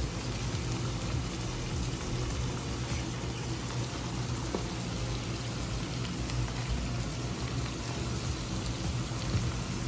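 Canned tuna and chopped onion sizzling in oil in a nonstick frying pan: a steady hiss with a few faint pops.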